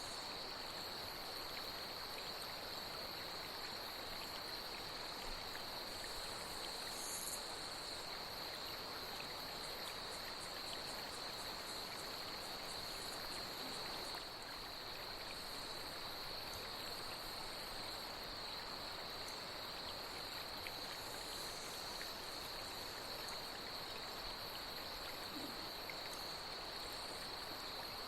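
Night insects, given as cicadas, keep up a steady high-pitched chorus over the continuous rush of a flowing stream. A few brief higher chirps stand out, one about seven seconds in.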